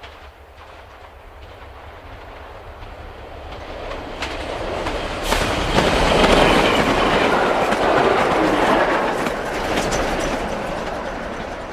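A train passing, growing louder to its peak about six seconds in and then fading, with the clickety-clack of its wheels over the rail joints.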